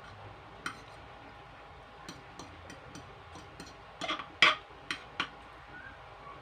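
Close-up mukbang eating sounds of okra being chewed: a scatter of short clicks and smacks from the mouth, with the loudest cluster about four and a half seconds in.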